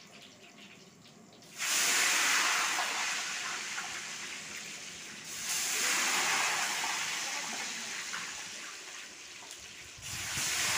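Liquid poured into a hot iron karahi, hissing and sizzling in three loud surges that each start suddenly and slowly die down.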